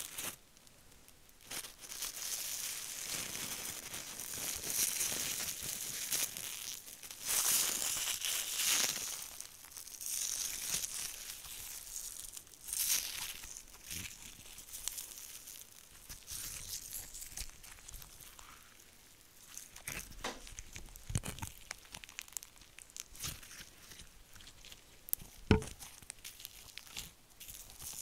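Gold leaf crinkling and tearing as it is kneaded into clear moonstone slime by hand, close to the microphone. In the second half it gives way to quieter sticky clicks and pops of the slime, with one sharp pop near the end.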